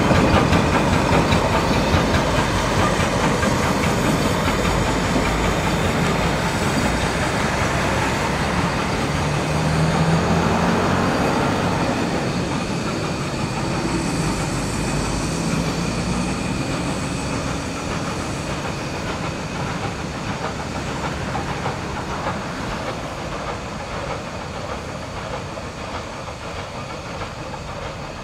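Achenseebahn steam rack-railway train, locomotive and carriage, rolling along the rack track with a steady clatter of wheels and running gear, the sound fading as it draws away.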